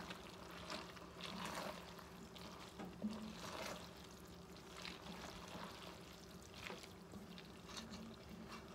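Wooden spoon stirring pasta, broccoli and tomato in an enamelled cast-iron Dutch oven: faint, repeated soft swishes and scrapes, about one a second, over a low steady hum.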